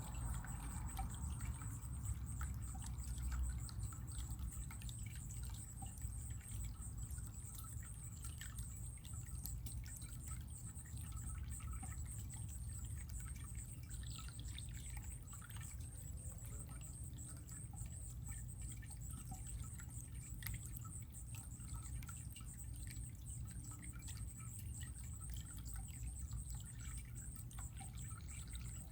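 Running water trickling steadily, with many small drips and splashes scattered through it.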